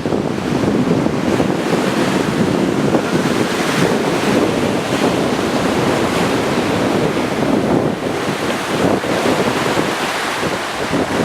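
Strong wind buffeting the microphone: a loud, steady rush of noise that swells and dips slightly from moment to moment.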